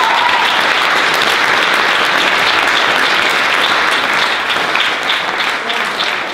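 A roomful of people applauding, with a vocal whoop trailing off at the start; the clapping thins out into separate claps near the end.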